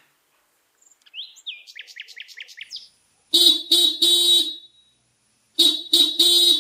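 A bird chirps in a quick run of short calls. Then a vehicle horn honks three times, and about a second later three times more, the last honk of each group held longer.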